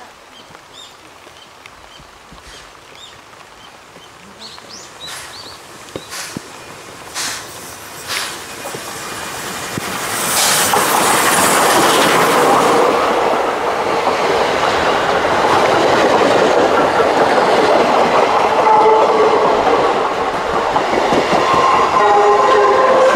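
An Ōigawa Railway steam locomotive approaches and passes close, hauling passenger coaches. Sharp knocks about a second apart come as it nears, then a loud burst of hiss as the engine passes about ten seconds in. After that the coaches roll by with a steady clatter of wheels over rail joints and a few short squeals near the end.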